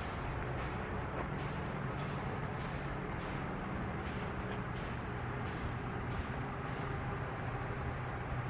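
Steady outdoor background: a low, even rumble, with a few faint high chirps, one of them a short falling trill about halfway through.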